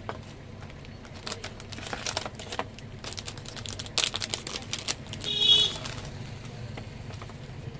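Crinkling and crackling of a plastic-and-foil packaging pouch being handled and pulled out of a cardboard box, in a run of quick clicks. About five seconds in, a short high-pitched tone, the loudest sound, cuts in briefly.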